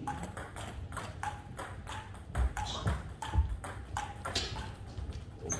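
Table tennis balls clicking off bats and tables in irregular rallies, a quick run of sharp ticks, with a few dull low thumps in the middle.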